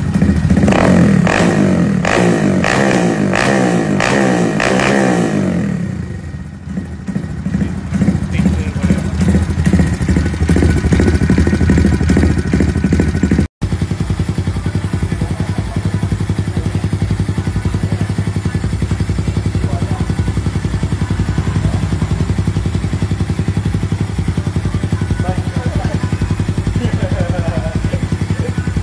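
Honda Monkey 125's single-cylinder four-stroke engine, fitted with an aftermarket exhaust, revved in about six quick blips, then settling to a steady idle.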